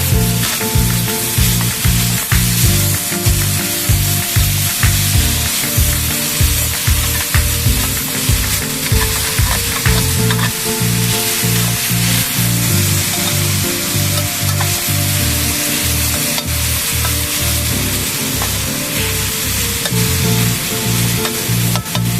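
Food frying in a hot pan, with a steady crackling sizzle throughout. Soft background music with a walking bass line plays underneath.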